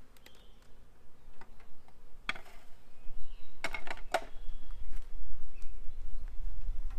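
Wooden Warré hive boxes knocking and clunking as they are lifted off the stack: a sharp knock a little over two seconds in and a cluster of several around four seconds. Bees buzz faintly around the open hive, and a low rumble builds through the second half.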